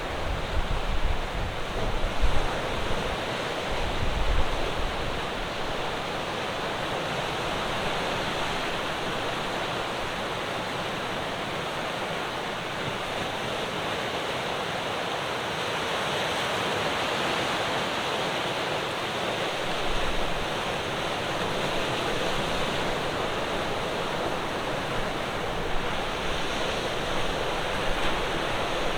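Ocean waves breaking on the shore: a steady wash of surf that swells and eases, with a few low thumps in the first few seconds.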